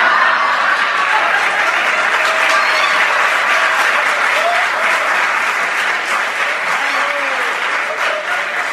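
Audience applauding in a long, steady round that eases slightly toward the end.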